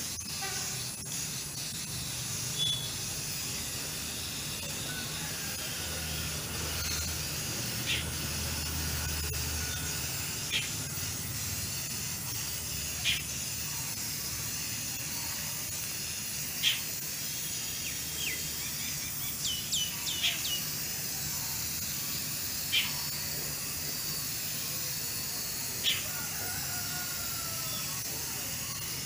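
Aerosol spray-paint can hissing steadily as paint is sprayed. Short high bird chirps come now and then through it.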